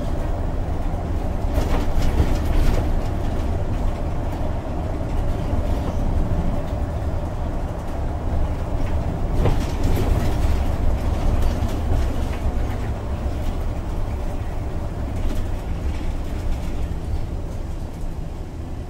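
Cabin noise inside a MAN Lion's City articulated city bus with a biogas engine, under way: a steady low rumble from the engine and the tyres on the road, with brief rattles about two seconds in and again near ten seconds.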